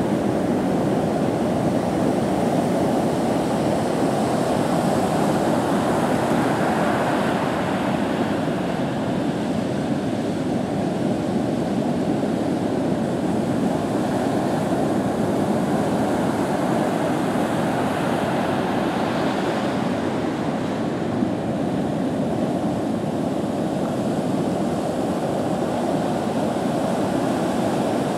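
Ocean surf from a hurricane swell: a steady rush of breaking waves and whitewater.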